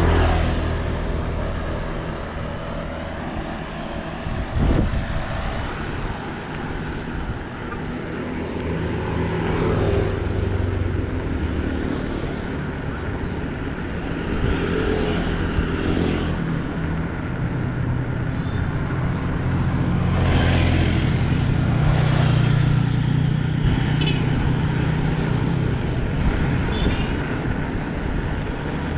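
Bicycle tires rolling on a road, a continuous low rumble with hiss, with a single sharp knock about five seconds in.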